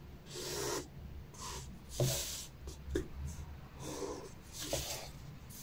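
Red marker scratching across paper in a few short strokes as pattern lines are traced along a curved ruler, with a couple of light taps.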